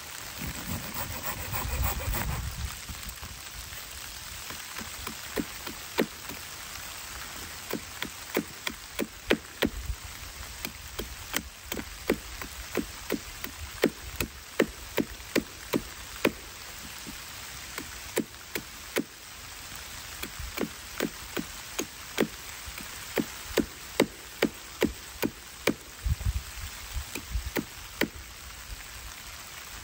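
Steady hiss of light rain in woodland, with a run of sharp clicks at about two a second from about five seconds in: a blade cutting into a wooden stick, sharpening a stake point. A couple of low thumps from handling come near the start and near the end.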